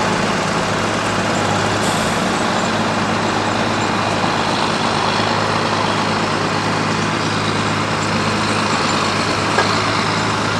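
Fendt 930 Vario tractor's diesel engine running steadily as the tractor moves slowly, a constant low hum with an even mechanical noise over it.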